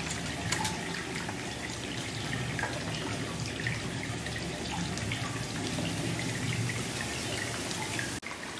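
Steady running, trickling water with scattered small drips.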